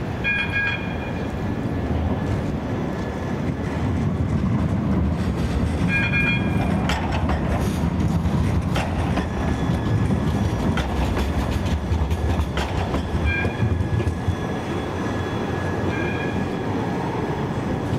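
Siemens Avenio low-floor tram rolling past at close range: a steady low rumble of wheels on rails, with a run of clicks from the wheels over rail joints in the middle and a few short high tones.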